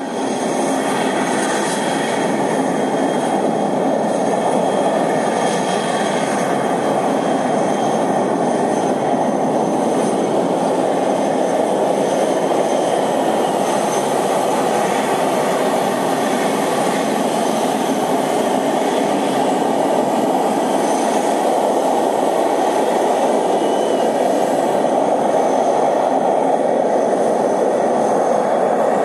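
Four Kuznetsov NK-86 turbofans of an Ilyushin Il-86VKP running at takeoff power: a loud, steady roar with several thin high whines above it.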